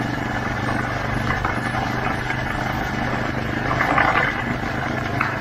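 Small motor vehicle's engine running at a steady, even speed while driving along a gravel road, with tyres crunching over the gravel and a burst of crackling about four seconds in.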